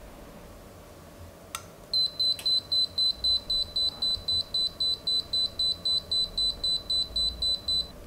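Alarm keypad beeping rapidly, a high pitched tone pulsing about four times a second, set off by the smoke detector's alarm relay sensing smoke. A single click comes just before the beeping starts about two seconds in.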